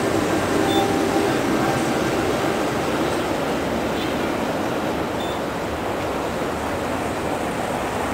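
Street noise of a city tram passing close by, with crowd murmur and traffic in a steady wash of sound. Two short high beeps sound, about a second in and again around five seconds.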